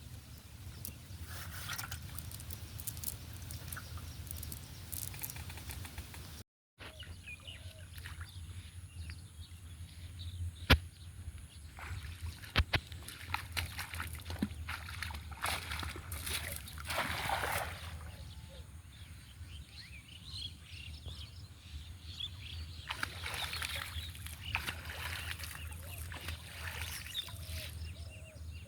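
Water sloshing and splashing in irregular spells, with a few sharp knocks and a steady low rumble underneath; the sound drops out briefly after about six seconds.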